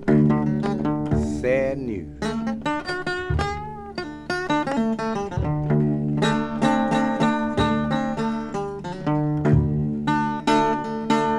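Instrumental opening of an old country song: quick picked notes on guitar and other string instruments, with a few notes that slide up or down in pitch.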